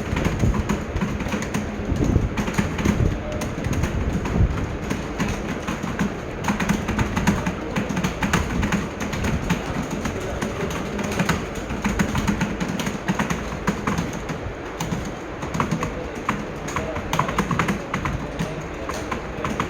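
Fast typing on a computer keyboard: a dense, continuous run of key clicks.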